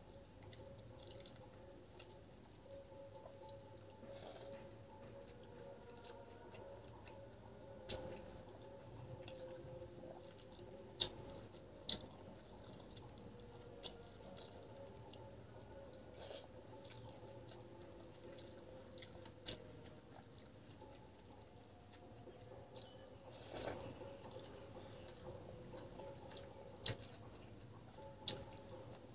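Wet mouth sounds of a person eating rice and curry by hand: quiet chewing with about nine sharp, wet lip smacks spread through, which sound like drips.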